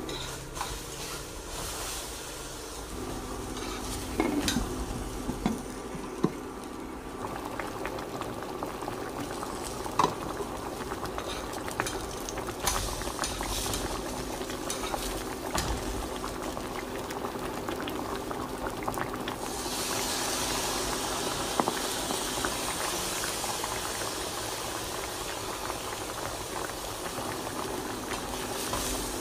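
Liquid boiling in a cooking pot, with scattered clicks and taps of a utensil against the pot. About two-thirds of the way through, a louder hiss joins in and keeps going.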